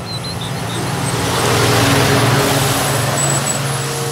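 Scania tanker lorry with a tank semi-trailer driving past: engine and tyre noise build to a peak about two seconds in, then fade as it moves away.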